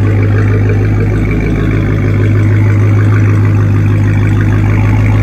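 Dodge Challenger SRT Hellcat's supercharged 6.2-litre Hemi V8 idling steadily through its quad exhaust tips, heard from behind the car; an even, unchanging exhaust note with no revving.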